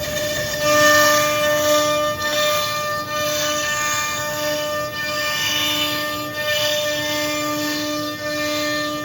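CNC router spindle running and cutting: a steady whine with a hissing cutting noise that swells and eases every second or so.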